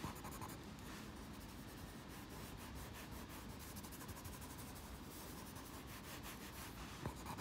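Soft charcoal pencil scratching and rubbing across drawing paper, faint and continuous in many small strokes as the drawing is shaded.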